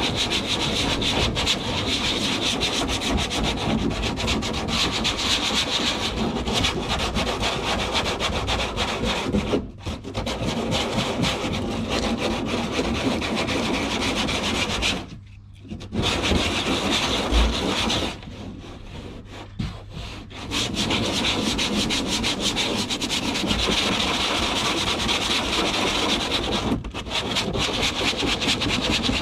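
Coarse sandpaper rubbed by hand in quick back-and-forth strokes over a plastic kayak hull, roughening the surface to give it a key for fibreglass. The rasping runs on steadily, stopping briefly a few times.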